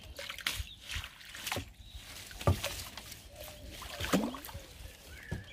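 Landing net being dunked and swished through pond water, with irregular splashes and sloshing as eel slime is rinsed out of the mesh.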